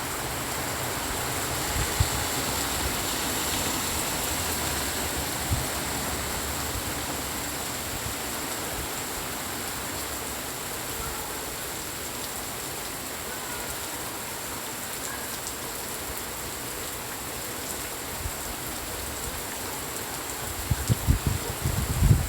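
Steady rain falling, an even hiss of water, with a few isolated low thumps and a cluster of low bumps near the end.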